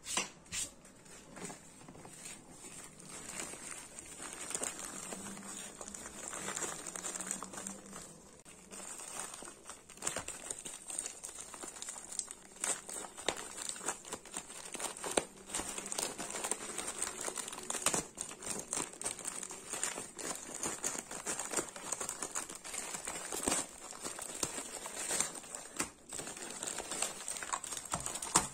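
Packaging being handled, crinkling and rustling, with many small irregular clicks and taps.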